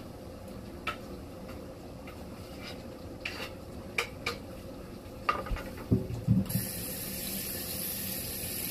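Utensils clicking and knocking against a pot on the stove as chopped peppers go in: a handful of separate sharp clicks and a few soft low thuds. About two thirds of the way in, a steady high hiss starts abruptly and keeps going.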